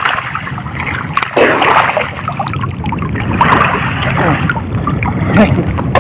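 Shallow seawater sloshing and splashing close to the microphone, swelling in a few surges with small crackling splashes between them.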